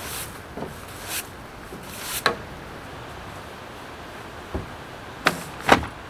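Broom strokes sweeping pine needles across wet wooden deck boards, a short swish roughly once a second. Near the end come a few sharp knocks and thumps.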